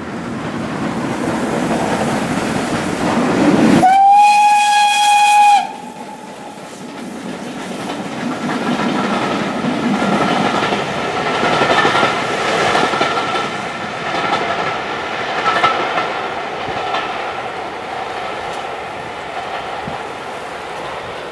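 Steam tank locomotive hauling carriages approaches and passes. About four seconds in, it blows its whistle: one loud held note lasting under two seconds that cuts off sharply. Then the locomotive and the clatter of its carriages on the rails go by and fade away.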